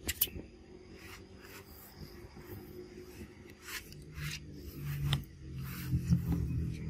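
Close rubbing and scraping handling noise on the camera, with scattered clicks and scrapes, as a baby macaque comes right up to the lens. A low hum comes in about four seconds in.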